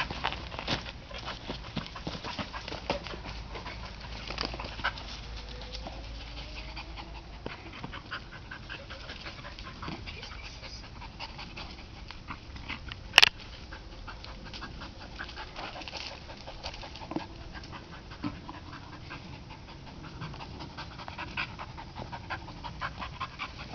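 A blue heeler panting, with scattered light ticks and one sharp click about halfway through.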